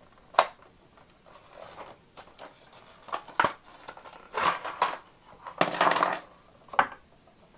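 Plastic blister pack being torn open and peeled off its cardboard backing: irregular crinkling and crackling of the thin plastic, with a sharp snap about half a second in.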